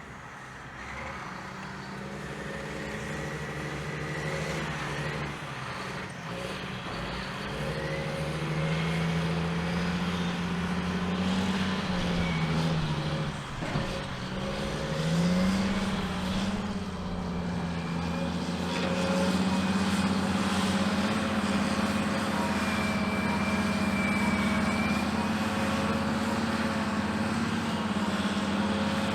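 Caterpillar 627G twin-engine scraper's diesel engines running hard. The engine pitch dips about twelve seconds in, then climbs back and holds, growing louder.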